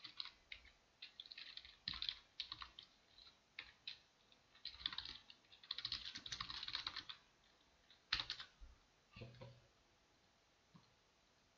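Computer keyboard typing: runs of quick keystrokes with a few separate single strokes, stopping about ten seconds in.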